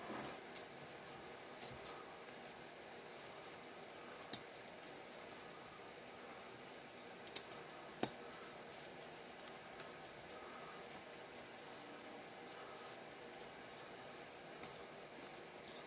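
Quiet handling of small bolts and parts as an indexer assembly is taken apart by gloved hands, with a few light clicks several seconds apart.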